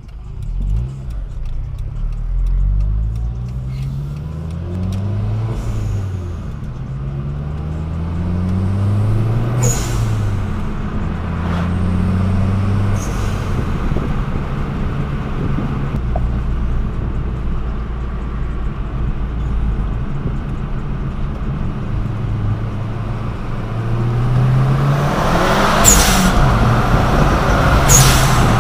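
Dodge Caliber SRT4's turbocharged four-cylinder engine, heard from inside the cabin, revving up through the gears several times. The pitch rises on each pull and drops back at each shift. A few short, sharp hisses come between pulls, loudest near the end.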